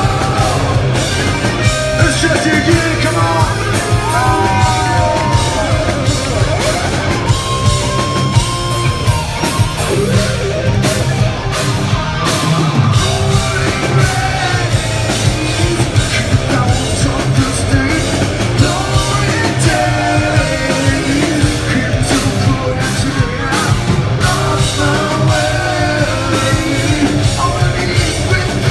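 A hard rock band playing loud live: distorted electric guitars, bass guitar and drum kit, with a singer's voice over the top.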